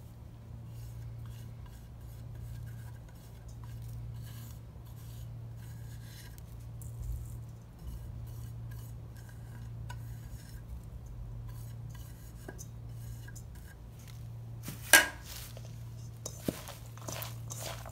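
Hands mixing sliced onion and potato with spices in a stainless steel bowl and scraping spice off a ceramic plate: soft rustling and light clinks, with one sharp knock about fifteen seconds in and a smaller one just after. A steady low hum runs underneath.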